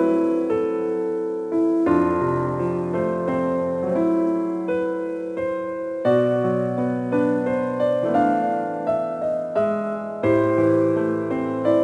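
Background piano music: a gentle melody over chords, with notes and chords changing every second or two.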